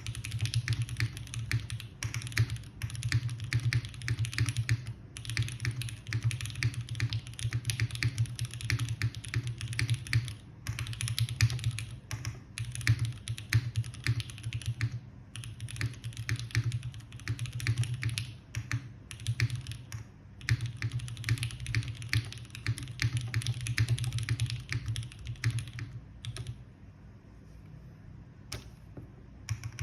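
Continuous typing on a Kalam Dalco 959 Mini GT mechanical keyboard with lubed, filmed SP-Star Meteor White switches on an O-ring-mounted aluminum plate and GMK keycaps. The keystrokes come in fast runs broken by brief pauses, then stop about 26 seconds in, with one more single keystroke near the end.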